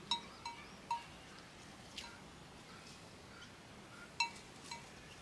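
Bell on a grazing cow's collar clinking with a bright, ringing tone: three strikes in the first second, then a couple more from about four seconds in.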